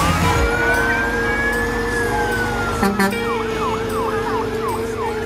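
Electronic vehicle siren sounding a slow wail that rises, holds and falls away, then switching about three seconds in to a fast yelp of about three sweeps a second, and starting another rising wail at the end. A steady hum runs underneath.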